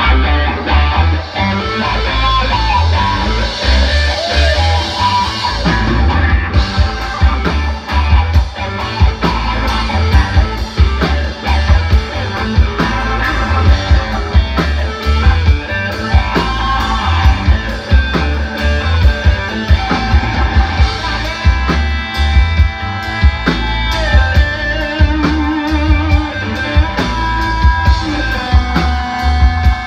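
Live rock band: a Stratocaster-style electric guitar played through an amplifier over a drum kit keeping a steady beat, with regular cymbal strikes from about six seconds in.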